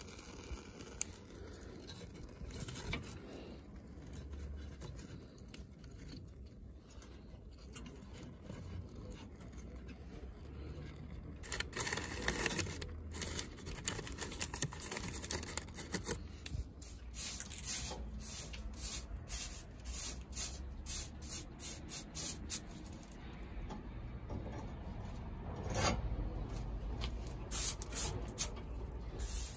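A wood stove being lit: crumpled newspaper and kindling handled in the iron firebox, with rustling, scraping and irregular clicks. Near the end a straw hand brush sweeps across the stove top.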